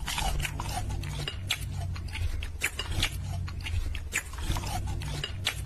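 A man's loud, exaggerated breathing, with wet mouth clicks and smacks at irregular intervals over a low rumble.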